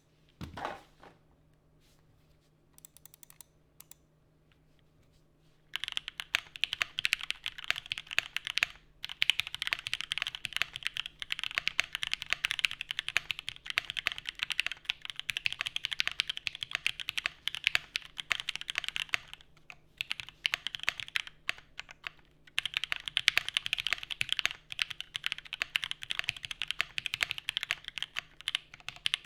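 Custom 7v mechanical keyboard with lubed and filmed Alpaca V2 linear switches on a polycarbonate plate under GMK keycaps, being typed on. A few scattered keystrokes come first, then fast continuous typing starts about six seconds in, with a short pause around twenty seconds. The keystrokes are high-pitched.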